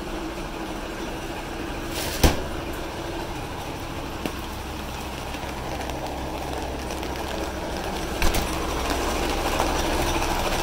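Fire engine running steadily close by: a low engine hum under a steady wash of noise, growing louder in the second half. There is one sharp knock about two seconds in and another about eight seconds in.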